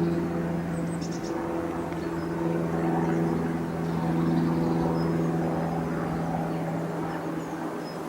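Propeller aircraft engine droning overhead, a steady hum that slowly fades, with a few faint high bird chirps.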